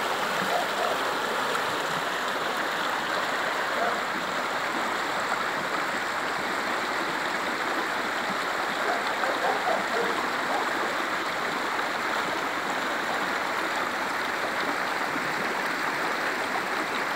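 Shallow river running over stones and gravel riffles: a steady rush of water with a few brief gurgles.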